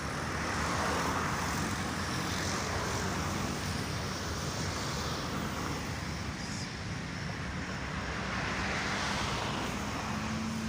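Passing road traffic: a steady rushing noise that swells about a second in and again near the end as vehicles go by.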